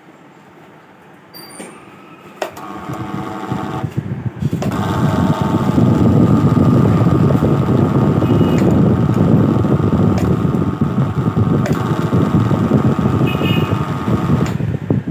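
Bajaj table fan being switched on at its push-button speed switch. A few clicks come first, then the fan's motor starts with a loud, rough buzzing rattle and a steady whine, building up over a couple of seconds and then running on. This is a faulty fan, making the noise whose cause is being asked about.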